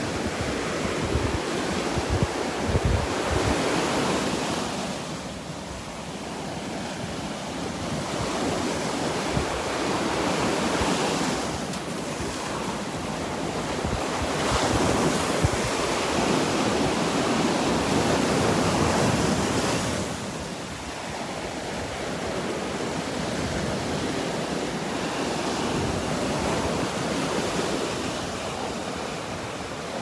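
Surf breaking and washing up a sandy beach, the wash swelling and ebbing every few seconds as each set of waves comes in. Wind buffets the microphone at times, most in the first few seconds.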